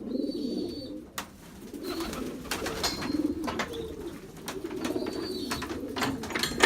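Domestic pigeons cooing in a loft, with a continuous low warbling sound. From about a second in it is broken by many sharp clicks and taps.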